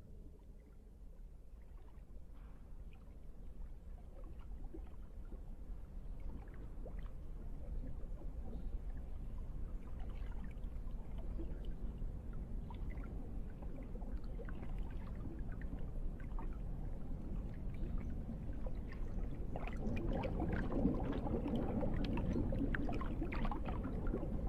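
A sound-effects ambience: a low rumble with scattered crackling and sloshing, fading in and swelling gradually, busiest near the end.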